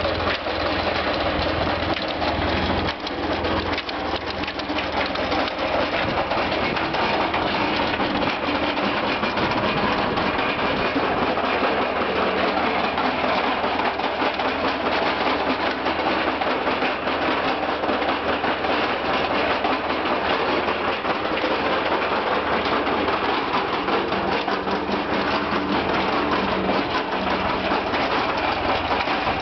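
Ford 9N tractor's four-cylinder flathead engine at fast idle, driving a homemade compost turner's paddle rotor through the PTO shaft with no load on it. A steady mechanical run with a fast ticking clatter from the driveline and rotor.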